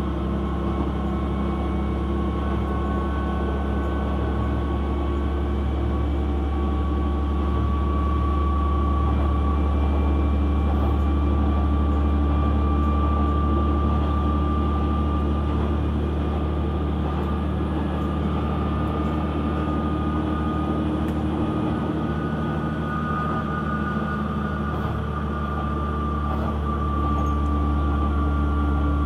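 KiHa 120 diesel railcar running along the line, heard from inside the passenger cabin: a steady low drone of engine and rail noise with faint whining tones that drift slowly in pitch.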